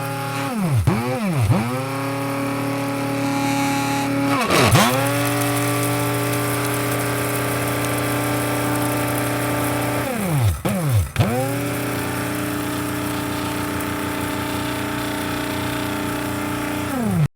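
Electric coffee grinder motor running with a steady whine, its pitch dipping sharply and recovering about six times, then winding down and cutting off at the very end.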